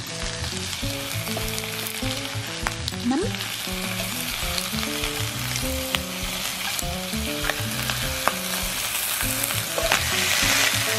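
Beef steak sizzling on an electric grill pan, the sizzle growing louder near the end as the steak is moved with tongs. Light background music with short melodic notes plays underneath.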